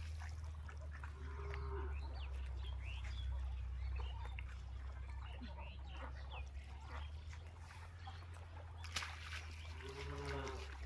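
Small water sounds as a hand net is worked through a weedy pond, over a steady low rumble. Two short animal calls stand out, about a second and a half in and again near the end.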